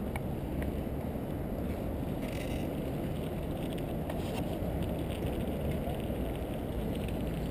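Steady low rumble of bicycle tyres rolling over a gravel path, picked up by a GoPro action camera riding on the bike.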